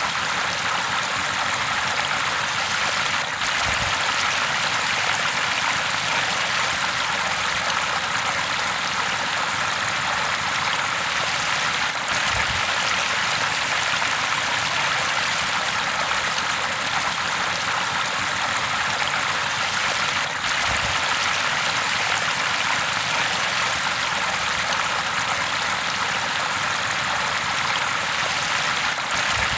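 River water rushing and babbling steadily over rocks, a continuous splashing hiss with an occasional faint low bump.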